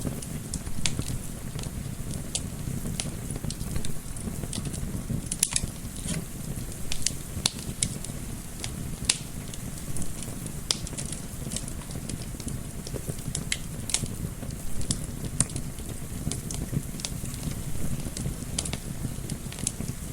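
Wood fire crackling in a fireplace: irregular sharp snaps and pops, several a second, over a steady low rush of gentle wind.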